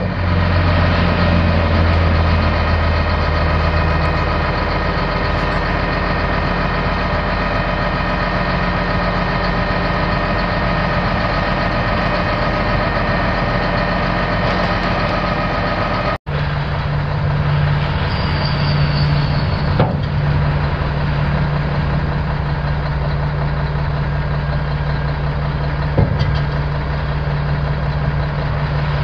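1994 Mack CH613 dump truck's six-cylinder diesel engine idling steadily. About halfway through, the sound drops out for an instant and comes back with the low hum at a higher pitch. Two short faint knocks follow later.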